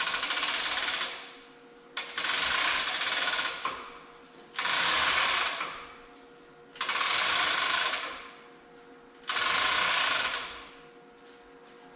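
Chain hoist lifting the heavy top housing off an Oliver 1855 tractor's rear end in five short runs of about a second each, a couple of seconds apart. Each run is a loud mechanical rattle that starts sharply and fades quickly when it stops.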